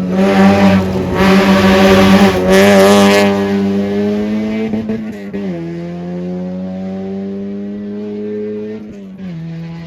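Rally car engine at high revs, loudest in the first three seconds as it goes by close. It then pulls away under acceleration, the pitch climbing and dropping sharply at two upshifts, about five and nine seconds in.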